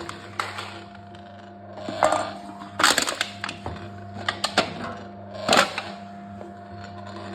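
Can-crushing machine running with a steady hum, with several sharp knocks and crunches of aluminium cans being crushed, about a second apart through the middle.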